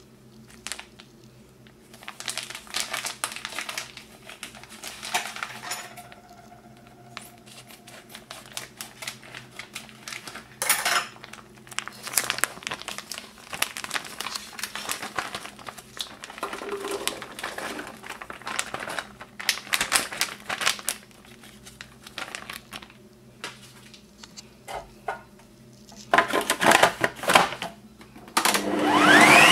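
Boiled chickpeas tipped from a crinkling plastic bag into a Bosch food processor's plastic bowl, with many short rattles, knocks and clatters of the bowl and lid being handled. Near the end the food processor's motor switches on with a rising whine.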